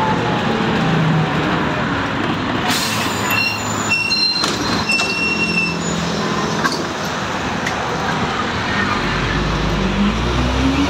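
Inside a city bus on the move: steady engine and road noise, with brief high-pitched squeals about three to five seconds in. Near the end the engine note rises steadily as the bus speeds up.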